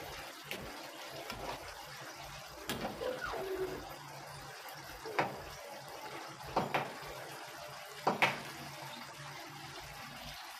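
Fish stew bubbling in a cooking pot, with several sharp clinks of a utensil against the pot.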